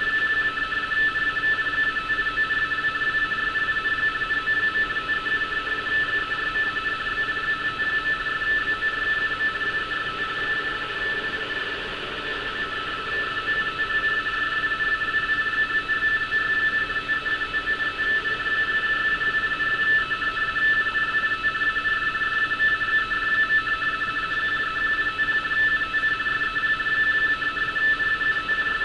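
Radioteletype (RTTY) signal from a shortwave receiver: a steady two-tone warble, the two tones close together in pitch, over a bed of band hiss. This is a German coastal navigation-warning broadcast being received and decoded as text.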